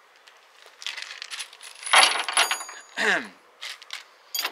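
Small steel bolts and nuts clinking together as they are handled out of a plastic bag, with the bag rustling. The loudest clink, with a brief metallic ring, comes about two seconds in.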